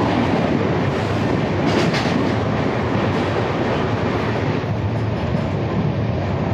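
Oncoming passenger train rushing past close alongside on the next track, its electric locomotive and then coaches going by with a loud rush of air and clattering wheels, heard from the open door of a fast-moving train. A train horn cuts off with a falling pitch right at the start.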